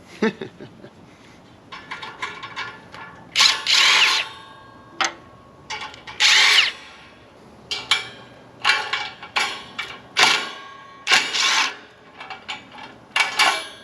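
Power drill run in several short bursts, each under a second, with the motor's pitch sweeping within each burst. Sharp clicks and clinks of tools and metal fall between the bursts.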